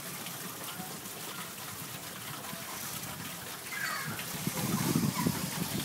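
Steady hiss of heavy rain and hail falling. About four seconds in, a brief wavering high sound and louder low rumbling join in.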